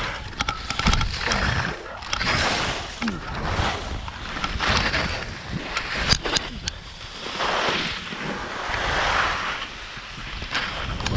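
Skis scraping and carving over chopped-up, lumpy snow: a hiss that swells and fades with each turn, with scattered clicks and knocks. Wind rumbles on the microphone underneath.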